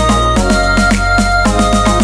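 Electronic background music with a steady beat over held chords that change about twice.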